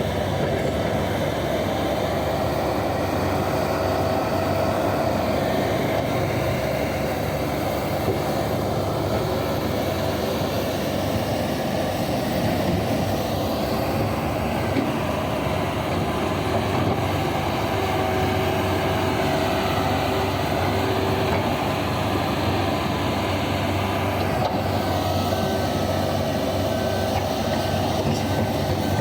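Large diesel engines of a mining excavator and haul trucks running steadily, with a back-up alarm beeping near the end.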